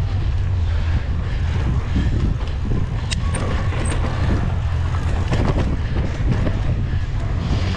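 Wind buffeting the microphone and a mountain bike's knobby tyres rolling fast over a dirt trail, a steady low rumble broken by frequent short knocks and rattles as the bike goes over bumps.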